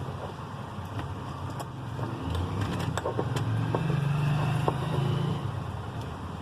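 A steady low hum that swells for a second or two in the middle, with scattered light clicks and taps of small plastic phone parts being handled.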